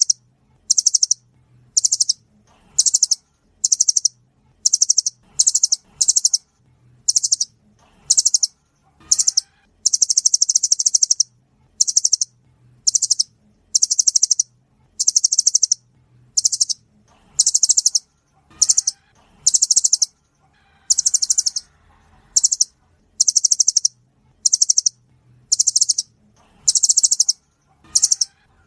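Nuthatch calls: a rapid, high-pitched trill repeated about once a second, each burst short, with one longer run of trilling about ten seconds in.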